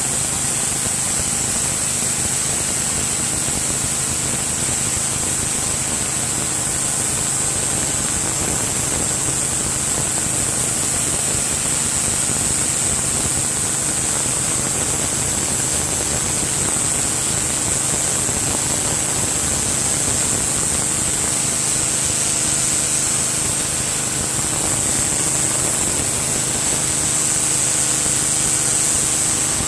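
Excell 3100 PSI gas pressure washer running steadily, its small engine's hum under a steady high hiss of the high-pressure spray striking concrete.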